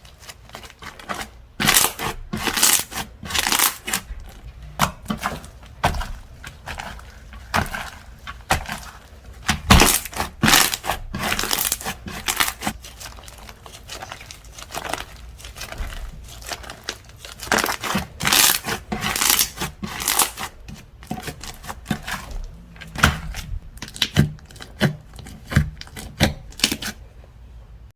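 Slime being squished, stretched and poked by hand, making irregular bursts of crackling and clicking noise, with a run of quick clicks near the end.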